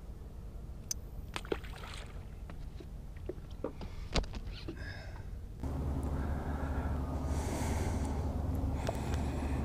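Scattered light clicks and knocks over a quiet low background. About halfway through, a steady low motor hum with a faint whine takes over: the boat's electric trolling motor running.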